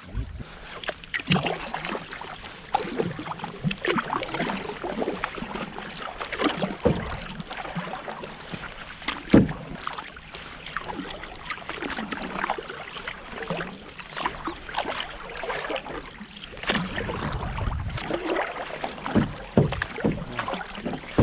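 Water splashing and gurgling around a canoe as it is paddled, with irregular paddle splashes and water lapping against the hull.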